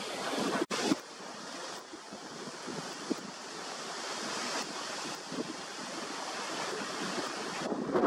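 Wind rushing over the microphone: a steady noisy hiss with gusty buffeting and no bird calls, broken by a brief dropout under a second in.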